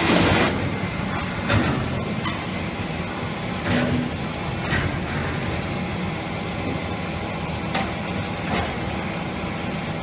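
Wheeled metal roll cages rolling over a concrete floor and ramp: a steady rumble with scattered knocks and clanks.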